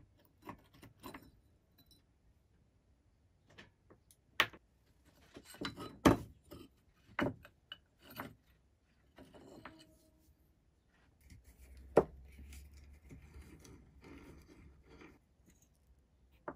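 A rusty cast-iron Stanley bullnose plane being taken apart by hand: its metal parts give several sharp knocks and clinks as they are handled and set down on a hard bench, with stretches of scraping and rubbing between.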